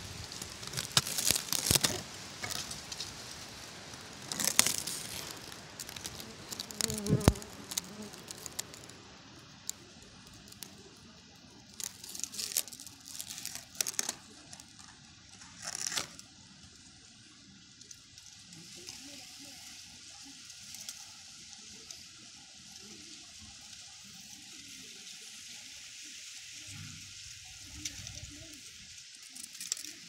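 Dry leaves and twigs crackling and rustling in scattered bursts through the first half, then a steady faint hiss.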